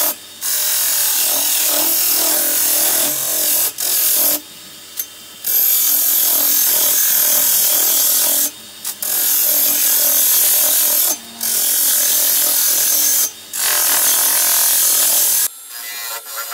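Turning tool cutting the face of a large spinning plane-wood bowl blank on a lathe: a loud scraping hiss in long passes, broken by short gaps where the tool lifts off the wood. Near the end the sound turns quieter and choppier.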